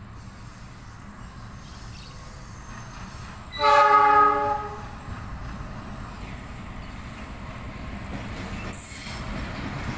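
A KAI CC 206 diesel-electric locomotive sounds its horn once, a loud chord-like blast about a second long that starts about three and a half seconds in, warning the level crossing. A low rumble from the approaching train runs underneath and slowly grows louder.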